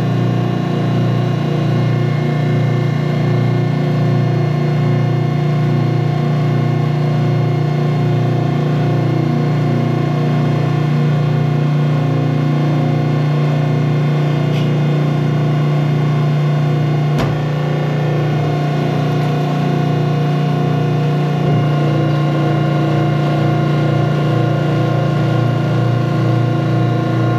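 Hydraulic manure piston pump running after being switched on, its motor and pump giving a loud, steady hum with a regular pulse. A single sharp click partway through.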